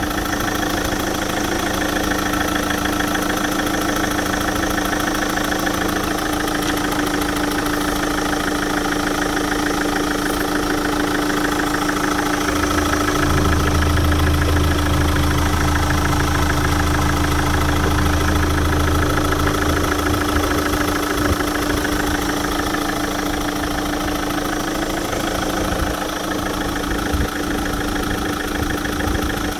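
GM Daewoo Winstorm SUV engine idling steadily. A deeper, louder hum joins from about halfway through for several seconds, then fades back to the plain idle.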